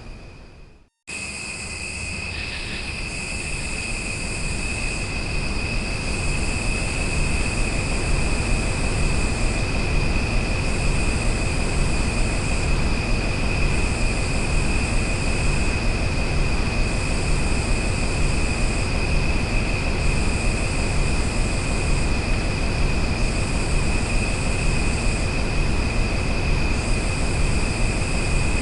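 Outdoor nature ambience: a steady high-pitched drone and a higher buzzing that comes and goes every couple of seconds, over a constant low rumbling noise. The sound cuts out briefly about a second in and then resumes.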